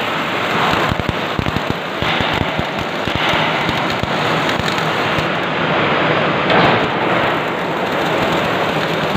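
CO2 gas-shielded wire-feed (MIG) welding arc, a steady dense crackling and spattering that swells briefly a few times.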